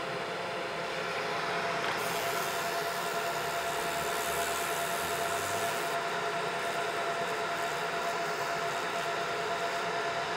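50 W fiber laser marker cleaning a copper penny: a steady machine hum, with a high hiss of the laser working the coin's surface coming in about two seconds in.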